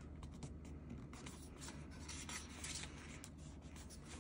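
Faint rustling and rubbing of a hand sliding over glossy photobook pages as a page is turned, over a steady low hum.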